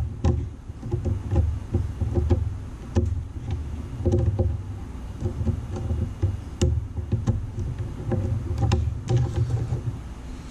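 Light clicks and taps of multimeter probe tips against the terminals of a relay in a fuse and relay box, over an uneven low rumble of rubbing and handling noise.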